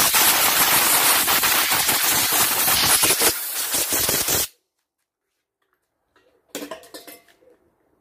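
Compressed-air blow gun blasting air over a removed lawnmower carburetor: a loud, crackling hiss that cuts off abruptly about four and a half seconds in. A brief clatter follows near the end.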